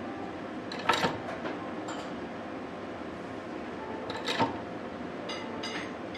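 Steady running of the chestnut-cream piping machine as it pushes thin strands onto a turning plate. Two sharp clinks cut in, one about a second in and one just after four seconds.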